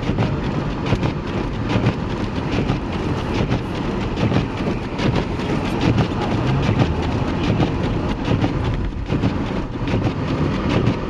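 An SUV driving along a snowy road at about the speed limit, heard from inside the cab: a steady low rumble of road and running noise, with a dense rough crackle of small clicks throughout.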